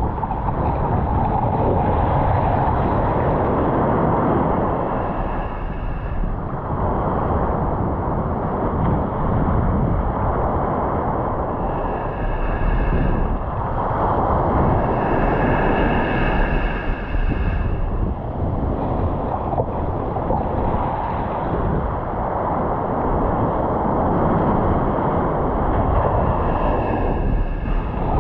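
Ocean surf breaking and washing up the beach, the rush swelling and easing every several seconds, with wind rumbling on the microphone. A faint high steady tone comes and goes a few times.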